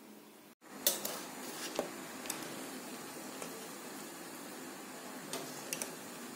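Metal slotted spoon clinking and scraping against a steel pot as cooked biriyani rice is turned: a few sharp clinks, the loudest about a second in, over steady background noise.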